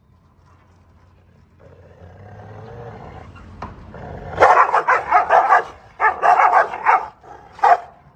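Dogs squaring off through a gate: a low growl builds, then about four seconds in they break into two bouts of rapid, snarling barks and one last bark near the end.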